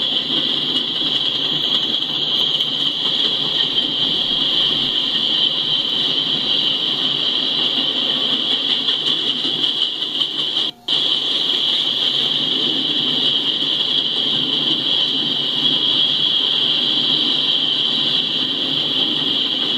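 Empty coal hopper cars of a freight train rolling past, a steady rumble of wheels on rail with a steady high-pitched whine over it. The sound drops out for a split second about halfway through.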